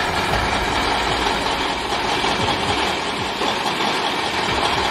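KAMAZ 6x6 truck's diesel engine running under load as it hauls a loaded bulk-cement trailer through deep sandy mud: a steady, dense, noisy engine sound with no breaks.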